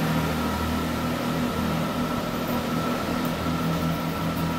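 Chiltern Railways Class 165 Turbo diesel multiple unit pulling away, its diesel engines running with a steady low drone and a thin steady whine above it.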